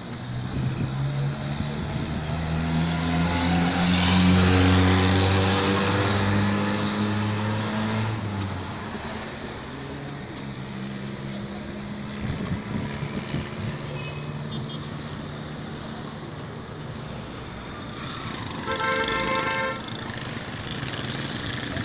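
Road traffic: a vehicle's engine accelerating past, its note rising in pitch and loudest about four to five seconds in, then fading. Near the end a car horn sounds once for just over a second.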